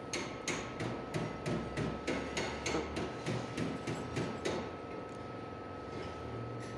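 A quick, even series of sharp taps, about three a second, that stops about four and a half seconds in, over a faint steady high whine.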